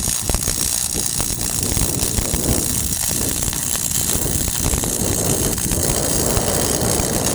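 Welding arc crackling and hissing steadily for several seconds, then cutting off suddenly at the end as the weld bead is stopped.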